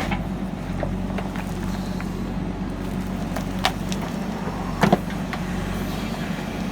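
JCB backhoe loader's diesel engine running steadily, with a few sharp knocks from the digging work, the loudest a quick double knock a little after the middle.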